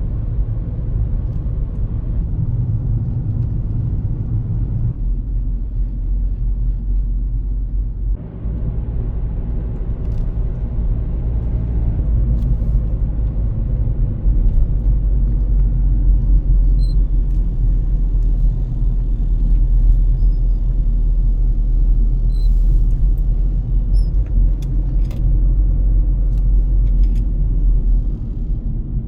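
A car driving, with a steady low engine and road rumble heard from inside the cabin.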